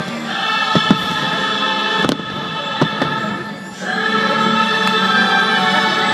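A fireworks show soundtrack of choir and orchestra plays over the park speakers, with about five sharp firework bangs in the first three seconds. About four seconds in, the music dips briefly and then swells into a louder sustained chord.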